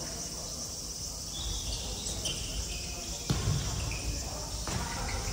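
Futsal being played on a wooden gym floor: short squeaks of players' shoes, then a sharp kick of the ball a little past three seconds in and a lighter touch near the end. A steady high-pitched drone runs underneath.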